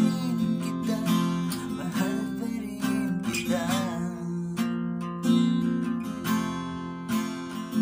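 Acoustic guitar strummed in a steady rhythm, with a man singing over it; the voice stops about four and a half seconds in and the guitar carries on alone.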